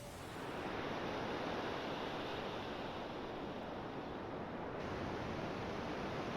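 A steady rushing noise, even and without tones, that swells up about half a second in and then holds level.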